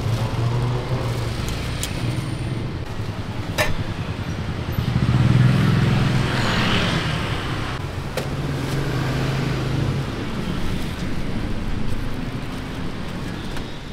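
Street traffic: motor vehicle engines running close by, one passing loudest about halfway through, with a few sharp clicks over the top.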